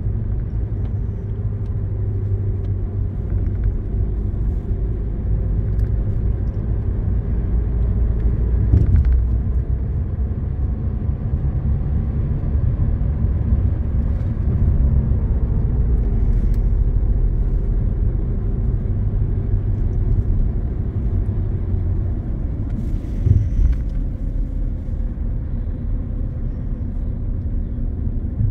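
Hyundai Elantra driving at road speed, heard from inside the cabin: a steady low rumble of tyres and engine, with a couple of brief bumps, about nine seconds in and again near the end.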